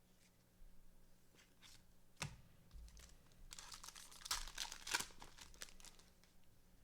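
Foil trading-card pack wrapper crinkling and tearing as a pack is opened, with a sharp click about two seconds in and light clicks of cards being handled.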